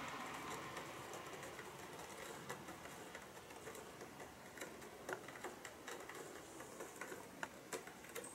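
Faint, irregular clicks and light scratches from a cat pawing about at its litter box and cardboard scratcher, getting busier after the first few seconds, with a couple of sharper taps in the second half.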